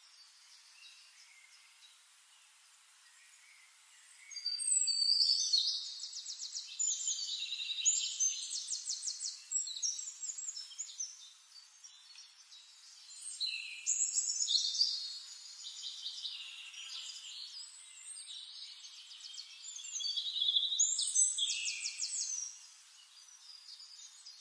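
High-pitched bird chirping and rapid trills in three spells of several seconds each, the first starting about four seconds in, with faint hiss between.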